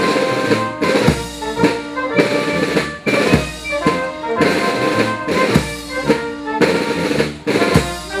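Marching brass band playing a march: a brass melody over bass drum and snare, the strong beat falling about twice a second.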